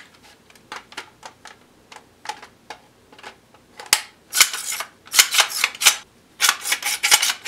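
Handling noise from an airsoft AK rifle: a string of small clicks and taps, then from about four seconds in a few short scraping rustles as the gun and gloved hands move.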